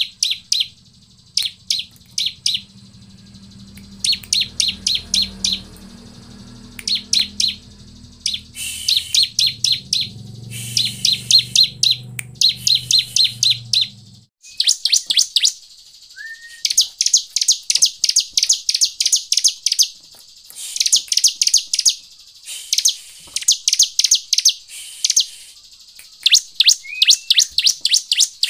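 Bar-winged prinia (ciblek) calling: rapid trains of high, sharp chirps, several notes to a train, repeated with short gaps and coming thicker and faster in the second half. A faint low hum underneath stops about halfway through.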